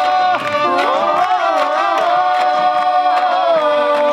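Carnival comparsa music: voices singing long held notes over a steady beat of percussion hits.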